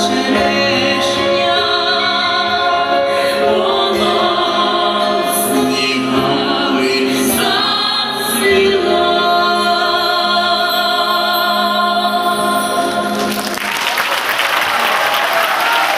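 Closing bars of a vocal duet with instrumental backing, the singing held over the music; about thirteen and a half seconds in the song ends and audience applause begins and carries on.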